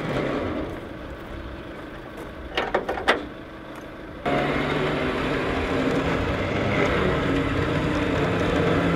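A flatbed recovery truck winching a car up its ramps: steady mechanical running, with a few sharp metallic clanks around three seconds in. About four seconds in it steps suddenly up to a louder, steady drone.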